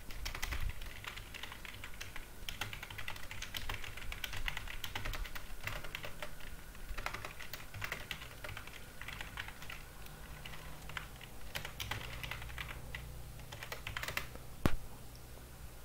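Computer keyboard typing: irregular runs of keystrokes, with one louder sharp click near the end.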